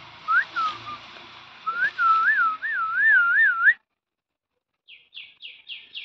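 A clear whistle near the same pitch: two short swoops, then about five quick up-and-down warbles, cut off abruptly. After a second of silence a bird starts chirping in quick short notes, about three a second.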